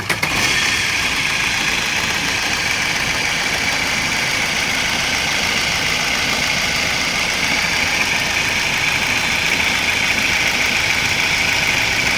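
Car engine idling with a loud, steady high whine over the running noise. The whine comes from the fan-belt tensioner (adjuster) bearing, which is badly worn and needs replacing.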